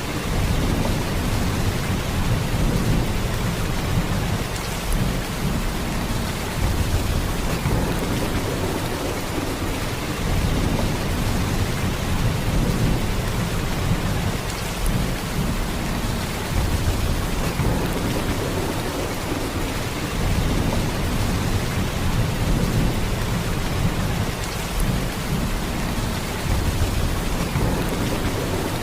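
Heavy rain in a steady downpour, a dense even hiss with a deep low rumble under it that swells and eases slightly every few seconds.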